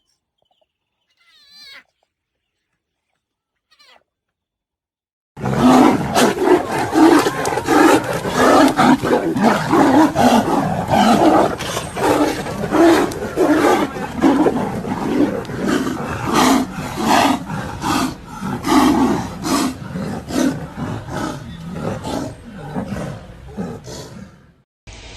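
Big cats fighting: a loud, sustained run of roars and snarls that starts suddenly about five seconds in and cuts off just before the end. Before it come only a few faint high calls.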